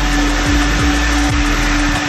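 Coin-operated car wash vacuum running with a steady hum and rush of air. Music with a pulsing bass beat plays over it.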